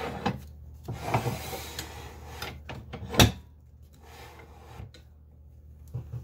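Handling noises from a wood lathe's tailstock being brought up against a heavy acacia bowl blank: metal scraping and rubbing, then one sharp knock a little after three seconds in, the loudest sound, followed by a few lighter knocks.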